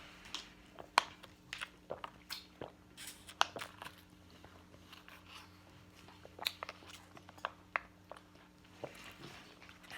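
A person chewing and biting into chicken at close range: irregular soft crunches and wet mouth clicks.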